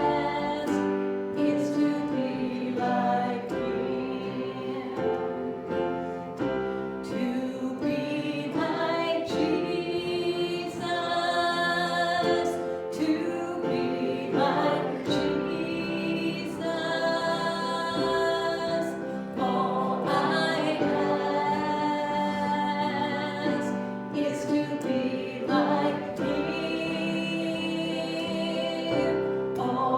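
Several voices singing a gospel hymn together, with sustained notes that change every second or two.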